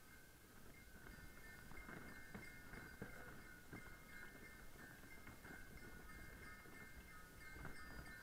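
Faint ringing of small bells on a horse's harness, struck again and again about twice a second as the horse walks, the tones hanging on between strikes.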